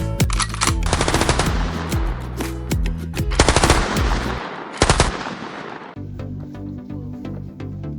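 Rapid gunfire in three bursts, laid over music. The last burst is short and comes about five seconds in, after which only the music goes on.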